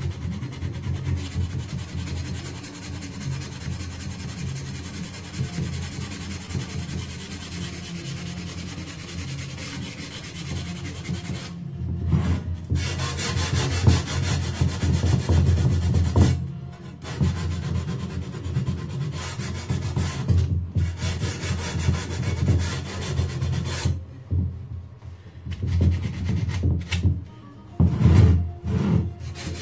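Rough hand rubbing or filing strokes of a tool worked against the edges of a dark frame from the clock being restored: a fast scratchy stroking that keeps going with a few short pauses.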